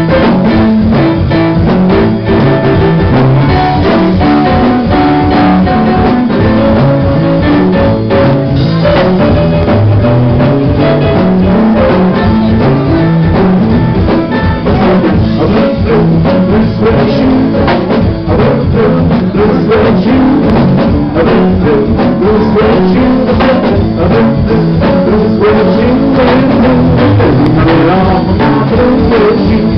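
Live country band playing a song with a steady drum beat, electric guitar and a Roland stage piano.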